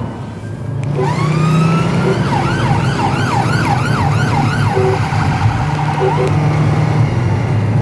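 Police car siren starting up with a rising wail about a second in, then a fast warble of about three cycles a second, over the steady drone of the car's engine.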